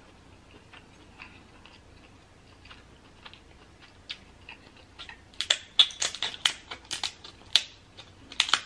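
Kitchen scissors cutting through the hard shell of a king crab leg. A few faint clicks, then from about five seconds in a quick run of loud, sharp snips and cracks, several a second.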